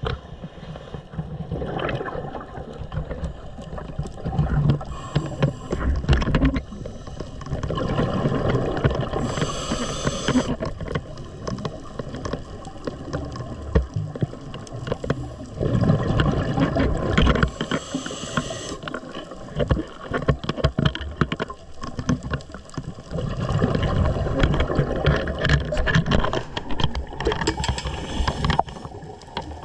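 Scuba diver breathing through a regulator underwater: a short hissing inhale about every eight or nine seconds, each followed by several seconds of rumbling, gurgling exhaled bubbles.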